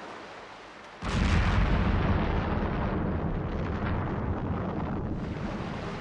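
An explosion: a sudden heavy boom about a second in, followed by a long rumble that slowly dies away.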